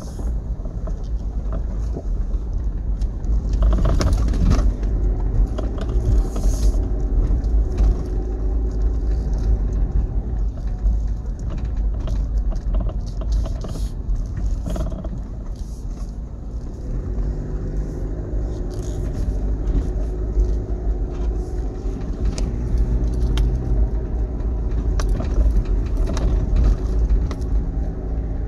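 Toyota Land Cruiser Prado driving on a rough dirt forest track, heard from inside the cabin: a steady low rumble of engine and tyres, with scattered knocks and rattles as it goes over the bumps. The engine note is clearer about two-thirds of the way in.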